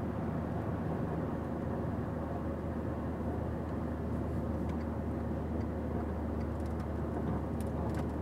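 Steady engine and road drone of a VW Touareg 3.0 TDI's V6 diesel towing a caravan, heard from inside the cabin, with a few faint ticks near the end.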